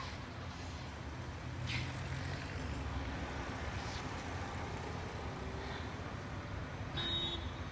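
Street traffic noise: a steady low rumble of cars, with a few faint short sounds and a brief high tone near the end.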